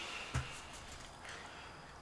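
Soft chewing and mouth sounds from eating chicken wings, with a single low thump about a third of a second in and a few faint clicks.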